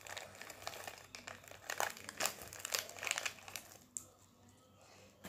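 Crinkly packet wrapper being handled, with short irregular crackles that stop about four seconds in.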